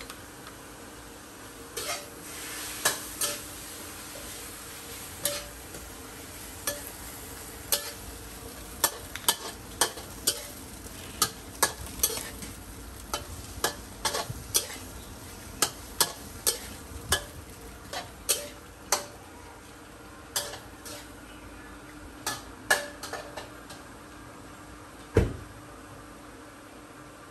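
Metal spatula clanking and scraping against a wok during stir-frying, one or two sharp strikes a second over a steady sizzle. A single heavier knock near the end is the loudest sound.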